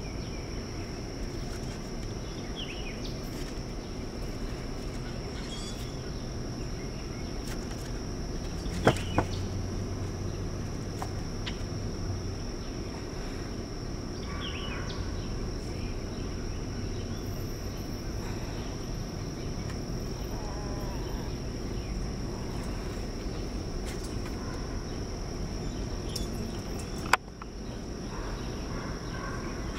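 Outdoor ambience: a steady high insect drone with a few faint bird chirps scattered through it. Two sharp clicks stand out, about nine seconds in and near the end.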